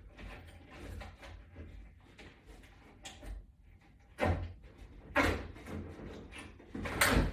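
A few separate knocks and clunks, the loudest about four, five and seven seconds in, with fainter ticks between, from putting the fourth screw into a wall-mounted bracket.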